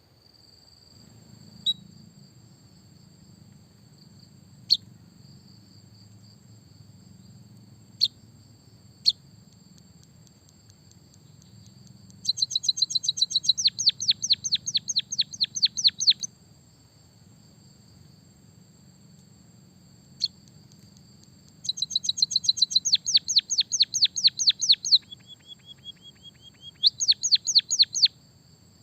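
White-headed munia singing with canary-style fill: a few single sharp chirps, then two long rapid trills of about nine falling notes a second, the second breaking into a short held whistle before a last trill near the end. A steady high cricket-like whine runs behind it.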